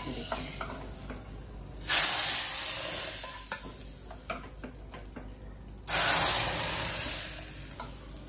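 Hot tadka (spiced tempering oil) sizzling as it meets the sambar: two sudden loud sizzles, each fading away over a second or two. A steel ladle clinks and scrapes against the pan and the pressure cooker in between.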